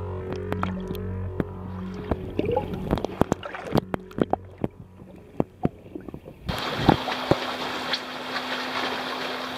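Sound picked up by a camera held underwater: scattered sharp clicks and ticks over a faint low hum. About six and a half seconds in it cuts to open air on a rocky seashore, with wind on the microphone and washing water over a steady low hum.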